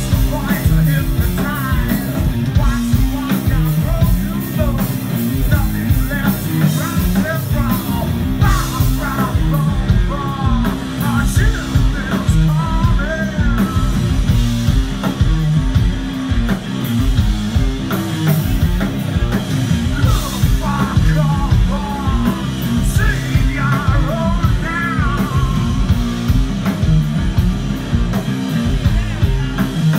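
Live heavy rock band playing loud, with distorted guitar, bass, drums and keyboard, heard from among the audience in a club. A singer's voice comes in for stretches, once before the midpoint and again after it.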